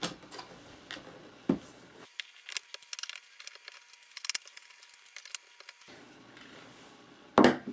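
Scattered light clicks and taps of a screwdriver working the security screws out of a Cisco 8865 IP phone's plastic housing, with small handling noises of the screws and parts. A brief louder sound comes near the end.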